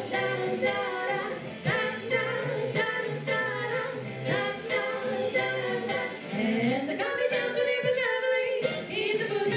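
Two women singing a 1940s-style song into microphones over a recorded backing track with a steady repeating bass line.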